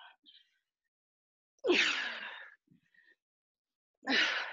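Two heavy, breathy exhalations from a woman straining through a body-weight exercise, about two seconds apart, each lasting about a second.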